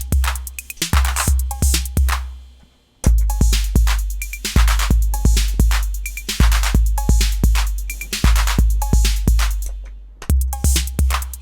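TR-808-clone drum machine playing a programmed pattern: deep booming 808 bass drum, ticking hi-hats, snare hits and short pitched cowbell blips. The pattern stops about two seconds in, restarts a second later, and drops out and restarts again near the end.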